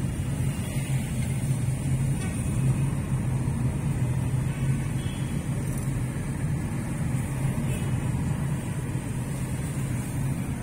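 Steady low drone of a car heard from inside its cabin: engine and road-traffic noise.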